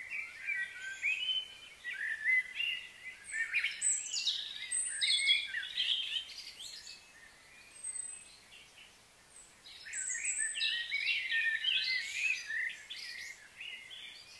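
Birds singing and chirping, many quick rising and falling notes overlapping, in two busy bouts with a quieter lull in the middle.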